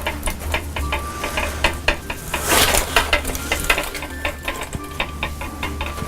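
Aluminum foil crinkling and crackling in irregular bursts as the foil-wrapped elephant armature is handled and bent into pose.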